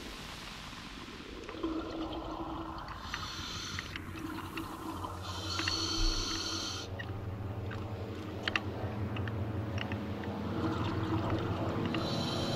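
Scuba diver breathing through a regulator underwater: three hissing inhalations with bubbling exhalations between them.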